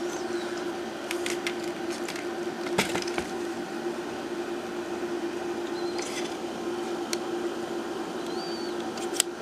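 Light metallic clicks and taps, spread out and irregular, from handling a Colt Diamondback .22 revolver with its cylinder swung open, over a steady low hum.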